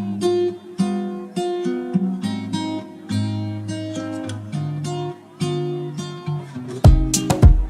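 Background music: acoustic guitar playing strummed chords in a steady rhythm, with louder, sharper strokes coming in near the end.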